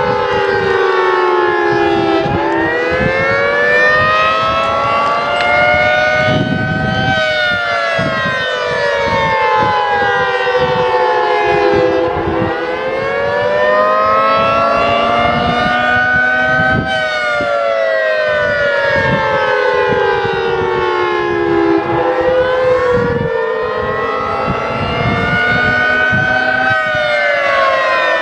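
Federal Signal 3T22 three-tone civil defense siren sounding the attack signal. Its chord wails up for about five seconds and down for about five, cycling roughly every ten seconds, with strong echoes.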